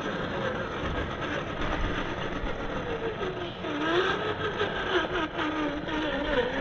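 RC scale crawler driving, its motor and drivetrain whining over a steady mechanical rattle, the pitch rising and falling with the throttle.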